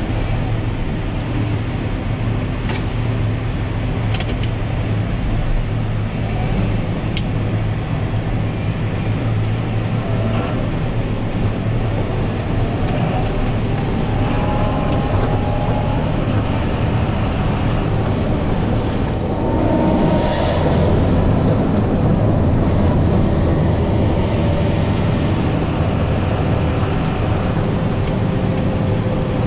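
John Deere 7530 tractor's six-cylinder diesel engine running steadily under load, heard inside the cab while it pushes a front snowplow through deep snow. A few short sharp clicks sound in the first several seconds, and the noise grows a little louder about twenty seconds in.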